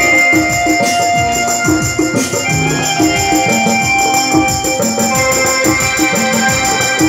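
Music: a melody of long held notes over a steady rhythmic beat.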